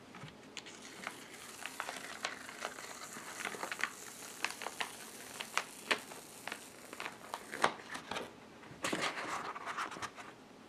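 A sheet of printmaking paper being peeled off an inked woodblock: soft rustling of paper with many scattered crackles and clicks as it pulls away from the ink, and a longer rustle of paper being handled about nine seconds in.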